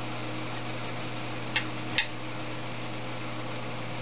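Two short, sharp metallic clicks about half a second apart, from a torque wrench on the cylinder-head bolts of a Briggs & Stratton 550 EX OHV engine being tightened toward 220 inch-pounds. A steady low hum runs underneath.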